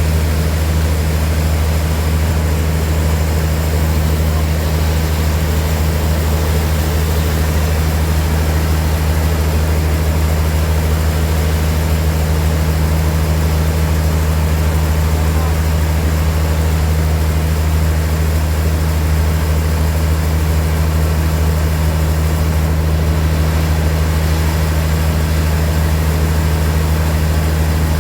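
Sawmill machinery running at a steady, unchanging speed: a loud, constant low engine drone.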